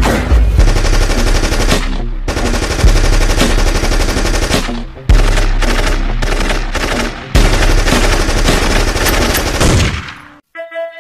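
Recorded machine-gun fire played over a stage PA as part of a dance soundtrack: long runs of rapid gunfire over a deep rumble, broken by a few brief pauses. The gunfire stops about ten seconds in and a slow melody of held notes begins.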